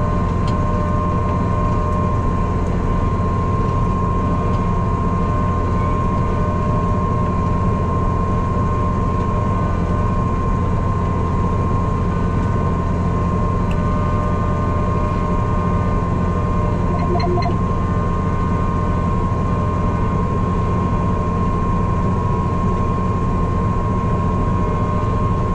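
Tractor engine running steadily while planting, heard from inside the cab: a constant low drone with a steady high whine over it.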